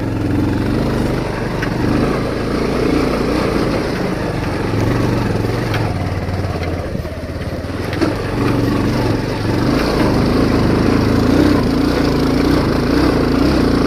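Motorcycle engine running at low speed up a rough, rocky dirt track, its note rising and falling a little.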